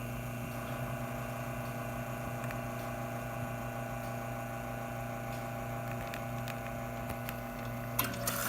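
Quick Mill Lucca M58 espresso machine pulling a shot, its rotary pump running with a steady, quiet hum. A couple of clicks come near the end.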